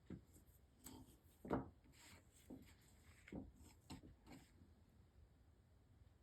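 Faint handling sounds: a screwdriver and a plastic latch being handled while JB Weld epoxy is worked, giving a string of small taps and scrapes over about four seconds, the loudest about one and a half seconds in.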